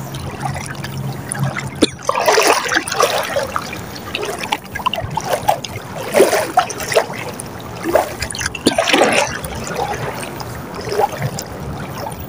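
Shallow seawater sloshing and splashing in irregular swishes as someone wades through it, loudest about two, six and nine seconds in.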